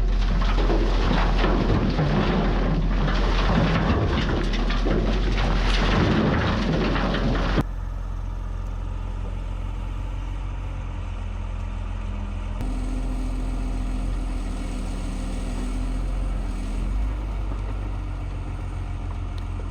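A loud steady rushing noise that cuts off abruptly about seven seconds in, followed by the steady low hum of an engine running.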